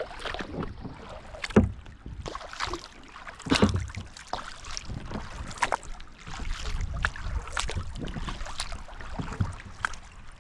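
Kayak paddle dipping and splashing in creek water, a stroke about every two seconds, with a low rumble underneath.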